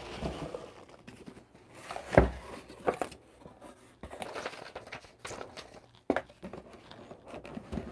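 A cardboard shipping box being unpacked: packing peanuts and cardboard rustling and scraping, with a few knocks, the loudest about two seconds in.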